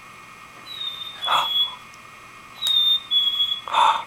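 Electronic toy bird chirping after its red button is pressed: two high, thin whistling chirps that dip slightly in pitch, each with a short noisy burst.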